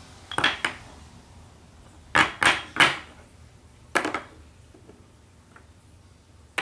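Red toy blocks knocking on a wooden tabletop and against each other as they are picked up and set down: a pair of clacks near the start, three quick ones about two seconds in, and one more about four seconds in.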